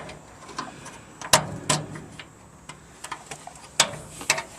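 A few sharp, irregular clicks and taps of a hinge pin and spring being worked into a cellar bulkhead door's hinge. The loudest come about a second in and again near the end.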